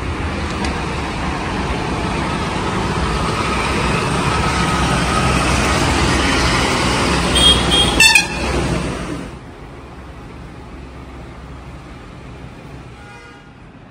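Road traffic of cars and motorbikes passing on a busy street, with short horn toots about seven to eight seconds in. About nine seconds in the traffic noise drops suddenly to a low background hum.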